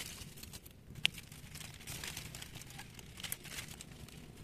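Faint rustling and crinkling of vegetable-fern (choại) fronds being handled while young shoots are picked by hand, with a sharp snap about a second in and a few lighter ticks a little after three seconds.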